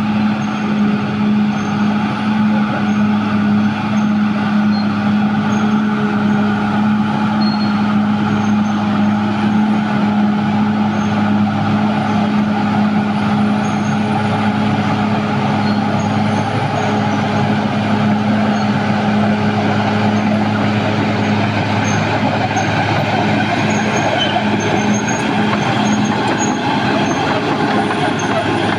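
Caterpillar D6R XL crawler bulldozer's diesel engine running steadily under load as the machine works, a constant low drone.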